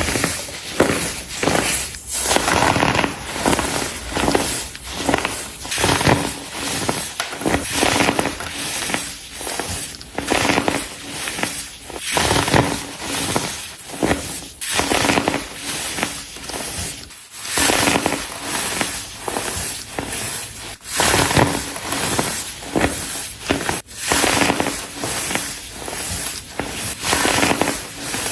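Pressed baking soda blocks being crushed over and over, a dense crunching and crackling with a fresh crunch every half second or so.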